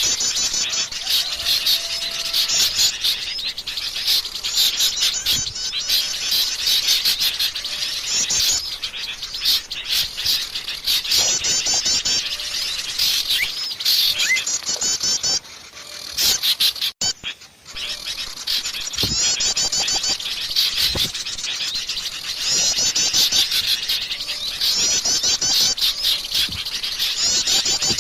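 Wild forest birds singing: dense, rapid, high chirping and trilling phrases repeated over and over, with a short break about halfway through.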